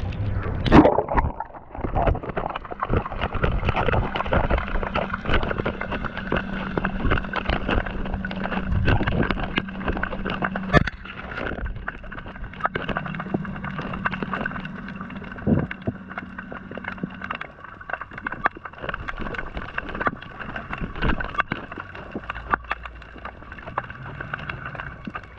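Underwater sound picked up by a GoPro lowered into the water: a splash as it goes in about a second in, then a muffled steady hum with many sharp clicks and crackles.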